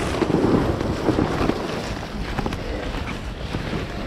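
Wind buffeting the microphone in a continuous low rumble, mixed with rustling and small knocks from clothing and kit as a player moves.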